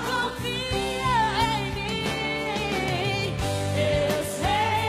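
A woman sings a Portuguese-language gospel ballad into a microphone, her melody wavering with vibrato over sustained accompaniment chords.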